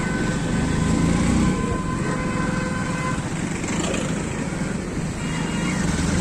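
Road traffic heard from a moving motorcycle: the bike's engine running under a steady mix of surrounding vehicle noise.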